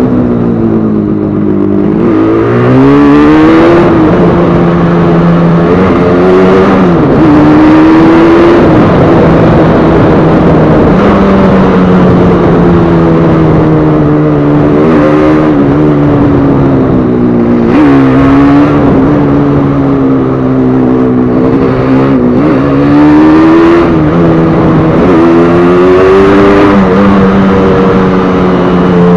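A freshly rebuilt Yamaha RD350's two-stroke parallel-twin engine running under way, loud and steady, its pitch rising and falling several times as the throttle is opened and closed.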